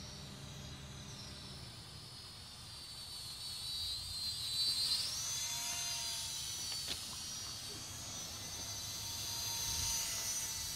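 Motor and propeller of a radio-controlled model airplane whining in flight. The pitch rises and falls as the plane passes, loudest about five seconds in and again near the end.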